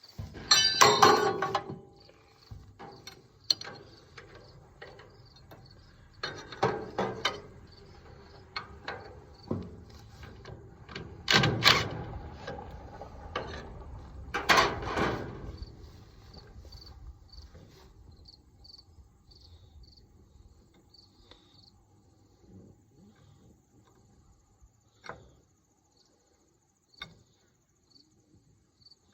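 A few loud clanks and knocks, some with a short metallic ring, in the first half as metal parts are handled around a hay baler. Crickets chirp steadily underneath, heard plainly in the quieter second half, with a couple of sharp clicks near the end.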